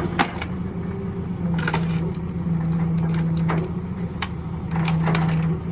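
Telehandler engine running steadily, its hum getting louder for a second or two at a time, with scattered sharp clanks and knocks.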